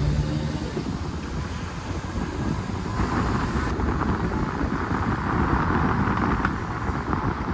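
Wind buffeting the microphone, with road and engine noise from a moving car. The rushing hiss grows brighter for a few seconds in the middle.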